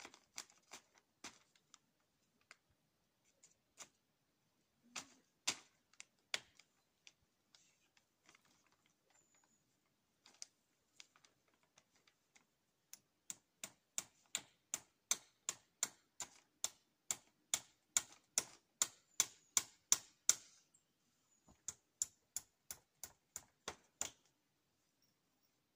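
Claw hammer driving nails into a wooden post to fix plastic sheeting. A few scattered blows come first, then a fast even run of about three strikes a second for several seconds, a short pause, and another run.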